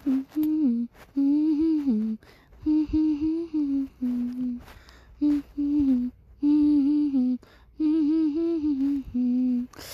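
A person humming a tune: short phrases of held, gently sliding notes with brief pauses between them.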